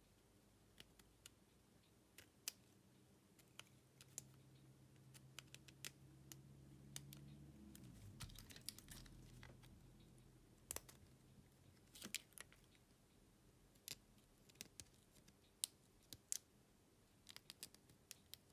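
Faint, scattered clicks and taps of small hand tools and parts being handled during a phone screen replacement. A faint low hum runs under them for several seconds and drops in pitch and fades about eight seconds in.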